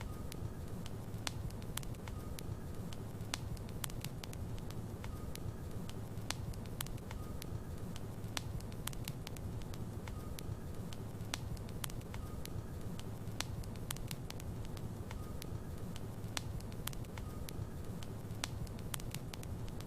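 Wood logs burning in a fireplace: a steady low rumble of flames with frequent sharp crackles and pops at irregular intervals.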